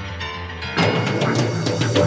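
Orchestral soundtrack music: a soft passage that gives way to a louder, drum-driven entry with repeated strokes about three-quarters of a second in.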